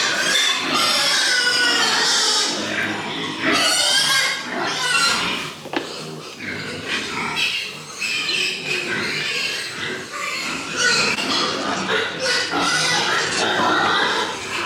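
Pigs squealing, one high cry after another.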